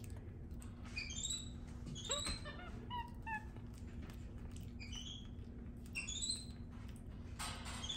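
Capuchin monkey giving short, high chirps that glide upward in pitch, in small runs of two or three about every second or two. A soft rustling comes in near the end.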